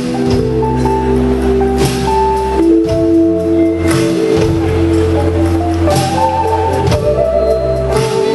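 A rock band playing live: drums, bass and guitars, with long held notes shifting from chord to chord over a steady bass.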